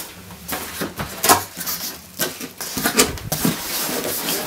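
Cardboard shipping box being opened: flaps and an inner cardboard panel scraping and rustling, with several sharp knocks, the loudest about a second in.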